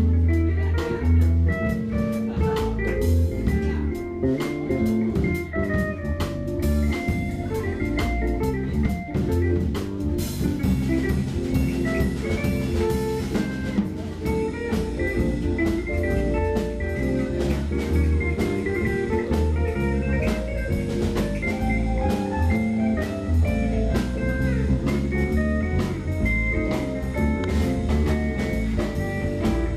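Live jazz-fusion band playing an instrumental: electric guitar, electric bass and drum kit with keyboards, a busy melody line over a driving bass line. A cymbal crash comes in about ten seconds in.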